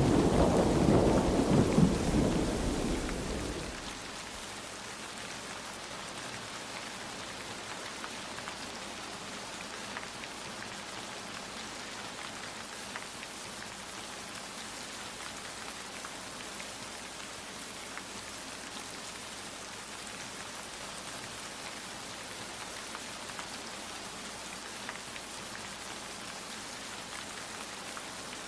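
A thunder rumble dying away over the first few seconds, then steady rain falling, with scattered individual drops ticking through it.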